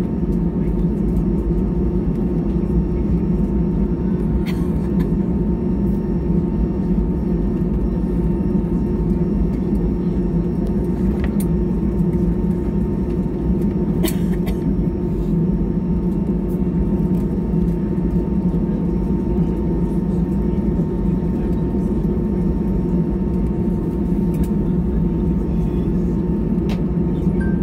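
Steady cabin noise inside an Airbus A320-214 while it taxis after landing: an even, low drone of the CFM56 engines and cabin air, with a thin steady whine. There are a few faint clicks along the way.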